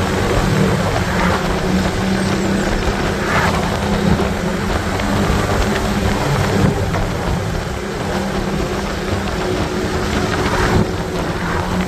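Loud wind rush buffeting the microphone on a motorcycle at road speed, with the bike's engine humming steadily underneath.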